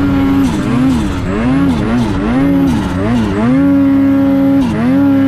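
Snowmobile engine revving up and down repeatedly while riding. From about three and a half seconds in it holds a steady high pitch, dips briefly near the end and climbs back up.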